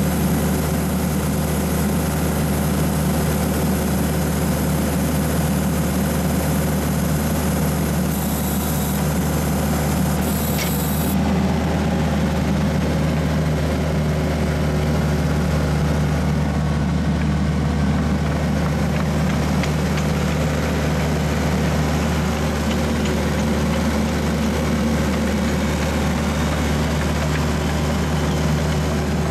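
Ditch Witch 1220 horizontal directional drill's engine running at a steady speed.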